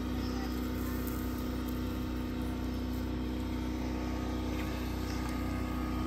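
A motor running steadily in the background, a constant unchanging hum.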